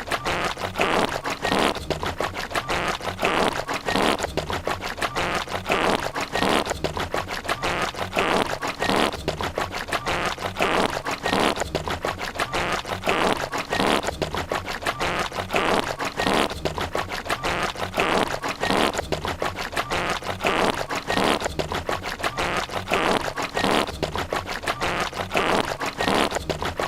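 Fart and gurgling stomach noises, scratched back and forth like a record on a turntable, in an unbroken stream of rapid crackling pulses.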